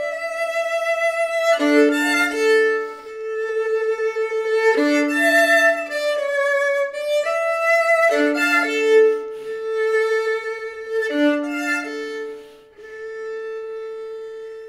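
Solo violin, bowed, playing slow repeating phrases of about three seconds, often with two notes sounding together. It settles onto a long, quieter held note near the end.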